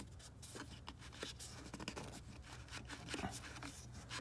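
Faint, irregular small clicks and scraping as the oil filter housing cap is turned and unscrewed from the bottom of the engine, over a steady low hum.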